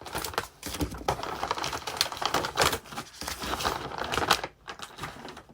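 Plastic wrapper of a packaged rice-cracker snack being handled and torn open: a dense run of rapid crackles that dies away about four and a half seconds in.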